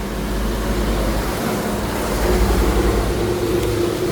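A motor vehicle engine running close by on the street, getting louder, with a steady low hum that steps up in pitch about halfway through.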